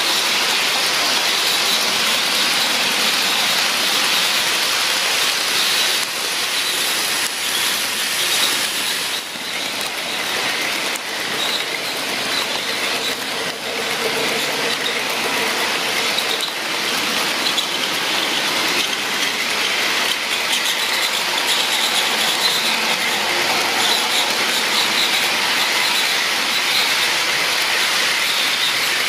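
HO scale model freight trains rolling on metal track: a steady rushing hiss of many small wheels on the rails, with the hum of a model diesel locomotive's motor coming in briefly about halfway through as it passes close.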